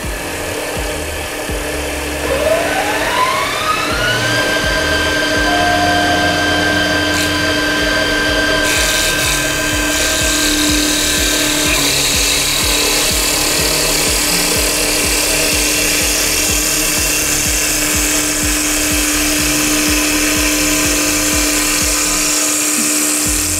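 Multi-spindle CNC wood lathe turning wooden furniture legs: a machine whine rises in pitch about two seconds in and then holds steady, and from about eight seconds in the cutters shaving the spinning wood add a loud, steady hiss.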